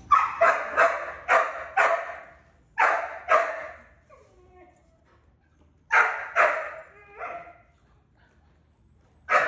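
Puppy barking in short sharp barks: a quick run of five, a pair, then three more and a single bark near the end.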